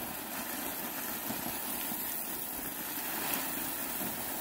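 Water from a garden hose spraying and splashing onto black plastic mulch and into a furrow, a steady hiss, with a steady motor hum underneath.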